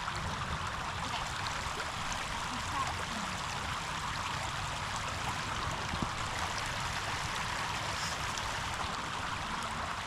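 River water rushing steadily, an even hiss without pauses.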